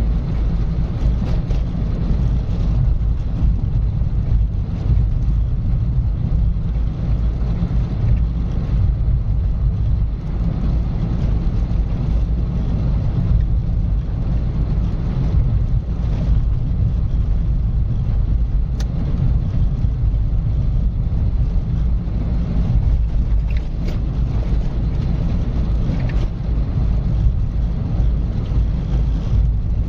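A car driving at a steady speed: a constant low rumble of engine and tyres on the road, with no change in speed.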